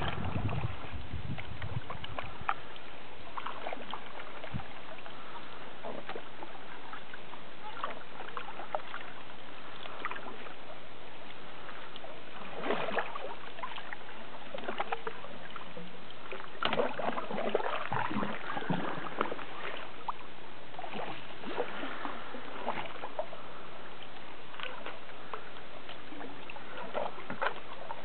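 Canoe paddles dipping and pulling through calm lake water, with irregular splashes and drips every second or two over a steady hiss.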